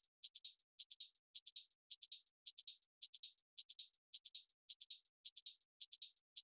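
Electronic outro music with only a thin, hissy drum-machine beat: quick hi-hat-like ticks in pairs and triples, repeating evenly a little under twice a second.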